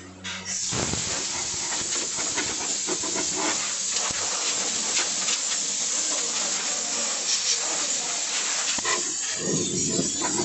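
Steady hiss of air blasting from an air blower, starting about half a second in.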